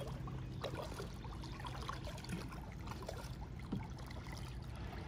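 Lake water lapping and trickling, with small scattered splashes over a steady low hum.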